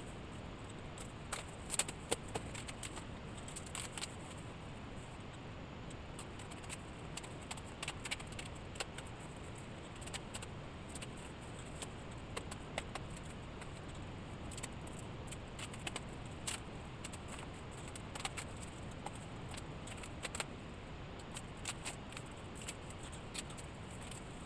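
Scattered light clicks and rattles, irregular and a few per second at most, over a steady background hiss.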